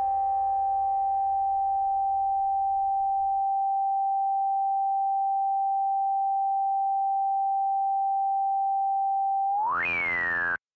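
A lone synthesizer sine tone held at one steady pitch, the final note of an electronic rock track, as the last of the other instruments fades out in the first few seconds. Near the end the tone sweeps sharply up in pitch, slides partway back down and cuts off suddenly.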